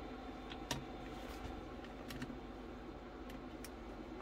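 A handful of faint, irregular clicks and taps from handling an AVO analogue multimeter, its range switch and its test leads.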